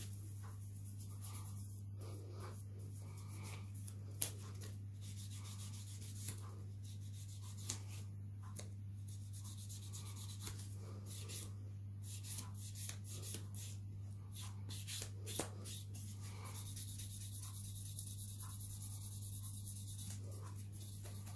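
A three-way nail buffer rubbing back and forth over a wrapped fingernail, buffing it to a shine: soft, repeated scratchy strokes with a few sharp clicks, over a steady low hum.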